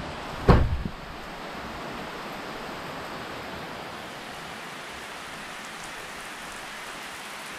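Heavy rain falling steadily, an even hiss throughout. About half a second in, a single short, loud thump.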